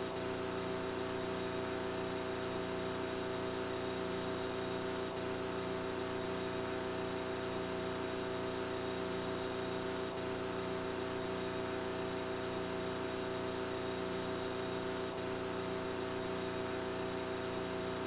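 Steady electrical hum with hiss: room tone carrying mains hum and several steady buzzing tones.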